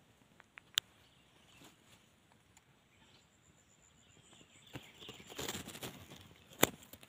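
Quiet rustling in dry leaves and stalks, with a couple of faint clicks in the first second, a spell of louder rustling from about four and a half seconds in, and one sharp click near the end.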